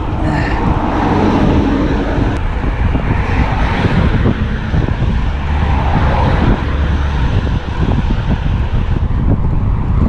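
Wind buffeting the microphone of a camera mounted on a moving road bicycle: a loud, uneven low rushing rumble.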